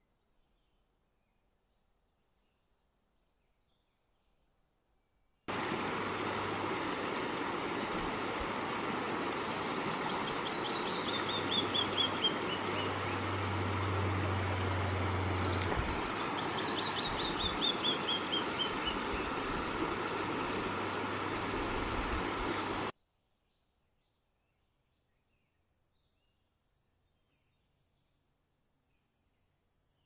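A bird singing two cascades of notes that fall in pitch, over a steady rushing outdoor noise that starts and stops abruptly. Before and after the rushing noise, a faint high, steady insect trill like crickets, growing louder near the end.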